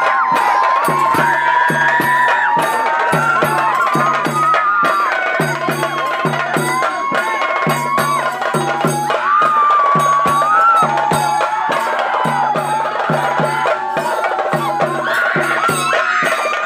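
Traditional folk music: drums beat a fast, even rhythm while a wavering melody line runs above them.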